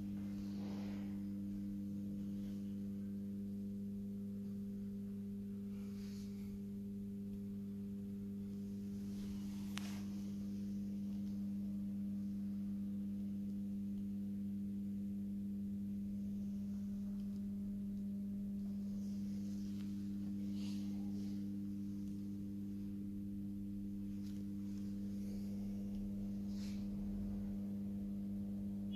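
A steady low hum of one unchanging pitch with overtones, with a few faint ticks now and then.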